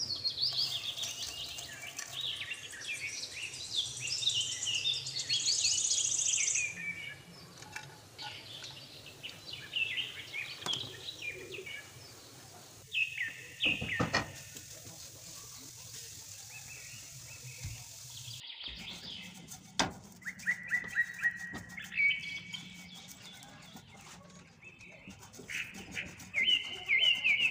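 Birds chirping in quick runs of short, high notes, thickest in the first several seconds and again near the end. A couple of sharp knocks come about halfway.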